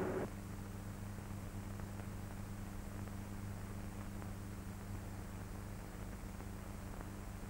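Faint steady low electrical hum with hiss, the background noise of an old film soundtrack.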